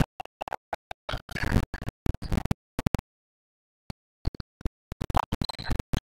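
Broken-up gym sound from a basketball game: short bursts of noise chopped apart by repeated dropouts to dead silence, with one full second of nothing about halfway through. The recording keeps cutting out.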